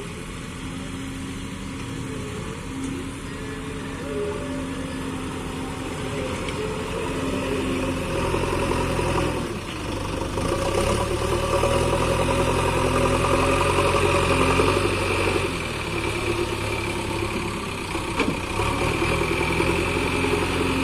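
JCB 3DX backhoe loader's diesel engine running and revving up and down as it works its loader and digging arm. It is loudest about halfway through, then eases slightly.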